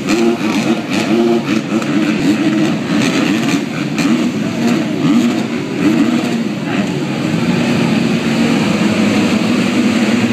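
A field of MX2 motocross bikes revving together. In the first half many engine notes blip up and down. From about two-thirds of the way in they settle into a steady held high-rev drone, typical of riders holding their throttles open while waiting for the start gate to drop.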